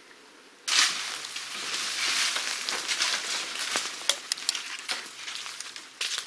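Crunching and rustling of dry leaf litter and saw-palmetto fronds as someone walks through scrub woods, a dense crackle with sharp snaps. It starts abruptly less than a second in.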